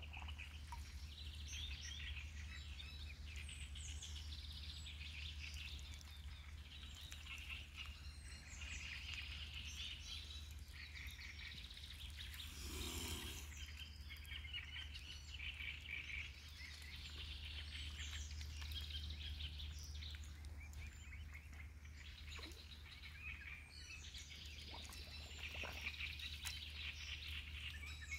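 Faint, continuous chirping and song of small birds, many short calls overlapping, over a steady low hum, with one brief noise about halfway through.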